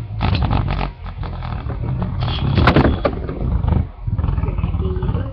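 Two metal-wheel Beyblade tops spinning in a plastic stadium, a steady grinding whirr broken by rapid clacks as they knock together. The loudest, sharpest hit comes a little past the middle.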